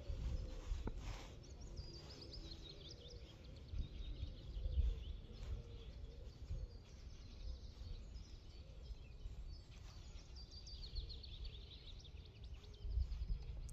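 Outdoor ambience with low wind rumble on the microphone, and a small bird singing quick runs of high notes twice, about two seconds in and again around ten seconds in.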